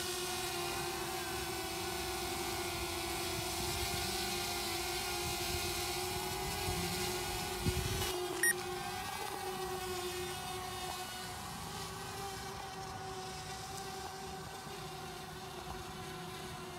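DJI Mavic Air quadcopter's propellers whining steadily as it hovers low and then climbs away, the whine growing fainter over the last several seconds. A brief click about eight seconds in.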